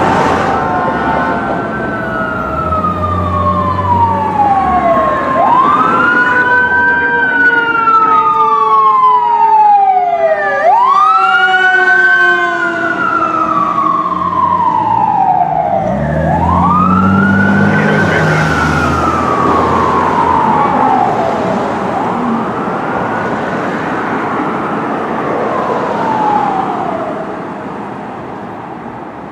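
Fire engine siren wailing in long sweeps, each rising quickly and then falling slowly, about every five seconds, over traffic noise. It grows fainter over the last few seconds as the engine pulls away.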